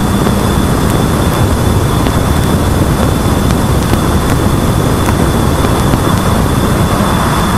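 Voyager 2 Plasma Wave Subsystem recording played back as sound: a loud, dense rushing noise, heaviest in the low end, with a thin steady high tone running through it and a low hum that drops out about a second in.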